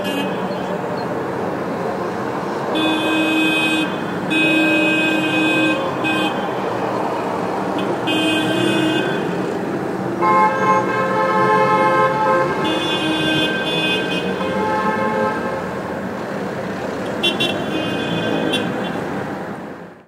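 Several car horns honking in traffic: a series of long and short blasts at different pitches, one lower-pitched horn held for about two seconds near the middle, over a steady traffic hum. Quick short toots come near the end before the sound fades out.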